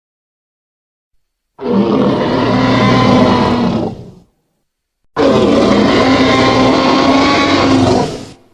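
Tyrannosaurus rex roar sound effect: two long, loud roars with a gap of silence between them. The first starts about a second and a half in and fades out after nearly three seconds; the second begins about a second later and lasts just over three seconds.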